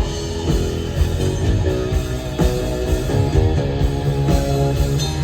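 Live cover band playing an instrumental rock passage between vocal lines: guitar over bass and a steady drum beat.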